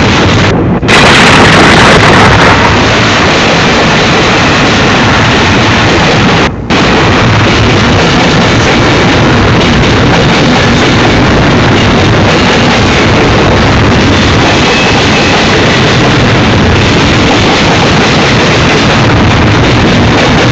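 Double-stack container freight train rolling past close by: a loud, steady rush and rumble of steel wheels on rail, with wind on the microphone. The sound cuts out briefly twice, once near the start and again about six seconds in.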